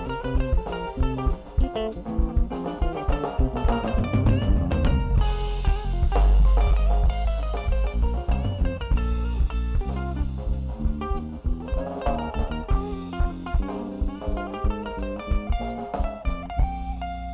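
Instrumental band music: guitar playing notes over a drum kit, with a heavy bass stretch in the middle.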